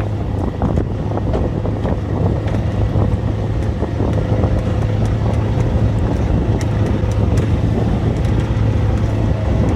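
A boat engine running at a steady speed, a constant low hum, with strong wind buffeting the phone microphone.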